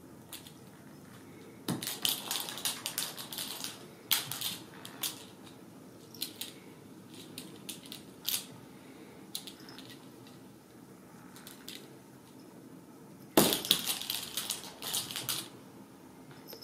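A crinkly cat toy being shaken and batted, giving bursts of crisp crackling and rattling. There is a long spell a couple of seconds in, a few short crackles in the middle, and the loudest spell near the end.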